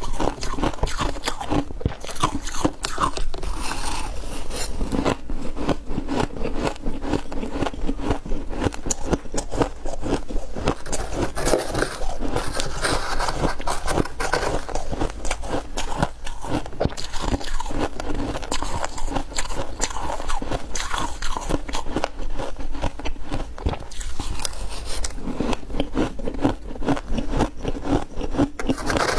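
Close-up crunching of ice being bitten and chewed, with scrapes of a spoon through the ice, a rapid, steady crackle.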